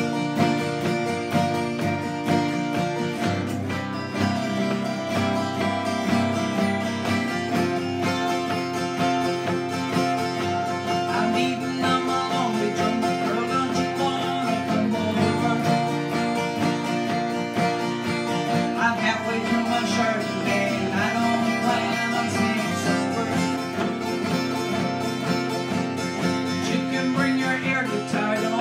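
Two acoustic guitars strummed together in a steady rhythm, playing a song.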